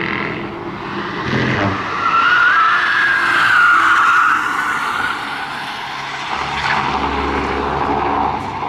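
First-generation Toyota Yaris hatchback driven hard through a corner, its small engine running at high revs. For a couple of seconds in the first half the tyres squeal in a loud, wavering high squeal.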